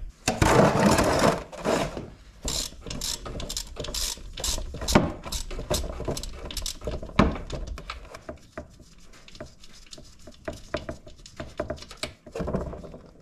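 Ratchet wrench clicking in short irregular runs as the oil drain plug on the Honda Big Red 300 quad's engine is undone for an oil drain, after a burst of scraping clatter over the first two seconds.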